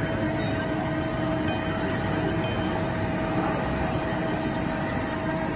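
Busy casino keno-lounge background noise: a steady din with a constant mid-pitched tone running through it.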